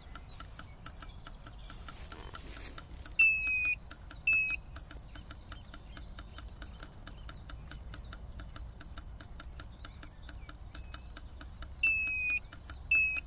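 Lucky FF918-C sonar fish finder sounding its shallow-depth alarm: a loud electronic beep followed by a short one, the pair heard twice about eight seconds apart, as the boat carrying the sonar sensor runs into water about 3.4 m deep. A faint, fast, even ticking runs underneath.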